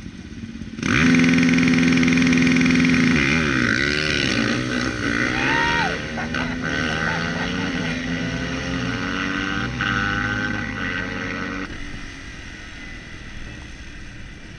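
Two 450cc race motorcycles held at steady high revs for a couple of seconds, then launching: engine pitch drops and climbs again and again as they accelerate through the gears. The engine sound starts suddenly about a second in and cuts off abruptly near the end.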